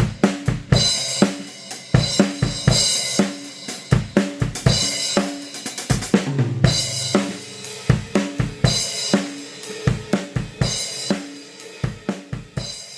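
Drum kit played in a steady groove with snare, bass drum and Zildjian A City Pack cymbals, with a tom fill about six seconds in; the playing tails off at the very end.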